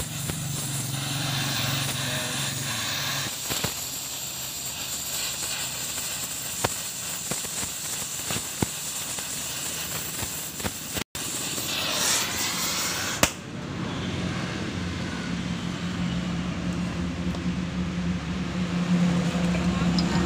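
Gas welding torch flame hissing steadily as it heats a steel pipe and melts in a filler rod, with occasional sharp crackling pops. About two-thirds of the way through the hiss stops suddenly, leaving a lower steady hum.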